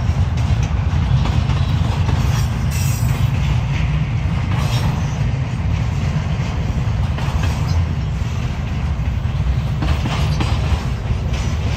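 Freight train rolling past: a steady low rumble of wheels on rails, with scattered faint clicks.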